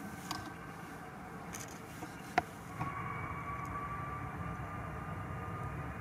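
Jet engines of a departing Boeing 737 MAX 8 airliner, a steady running noise heard at a distance. A sharp click sounds a little after two seconds, and just before three seconds a steady whine sets in and rises slightly.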